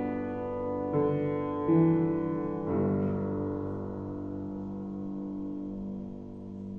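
Upright acoustic piano playing a short phrase: three notes or chords struck about a second apart, the last a final chord that is held and slowly dies away.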